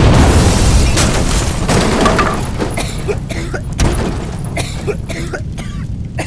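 A string of firecrackers going off: a dense burst of rapid cracking that starts suddenly, then thins to scattered single pops over the next few seconds.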